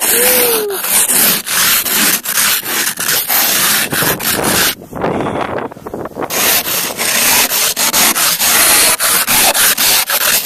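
Ice scraper scraping snow and ice off a car's windshield in quick, repeated strokes, with a short pause about five seconds in.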